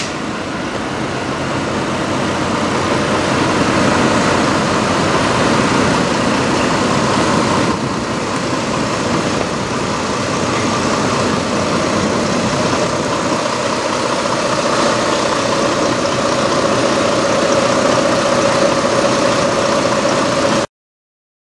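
Semi truck's diesel engine idling steadily. The sound cuts off suddenly near the end.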